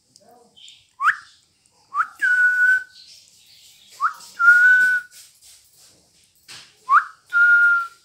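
Indian ringneck parrot whistling: a short upward-sweeping whistle, then three whistles that each sweep up and settle into a held steady note.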